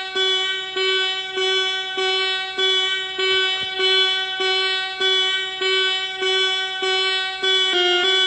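Emergency-alert alarm tone played back: one electronic note with a sharp attack repeats about twice a second, then steps to other notes near the end.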